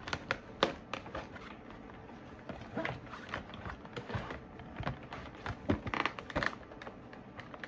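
A collapsible camping bucket being pulled and twisted as he tries to work it open while it stays stuck shut: scattered soft clicks, rubbing and rustles, busier around the middle and again after about five and a half seconds.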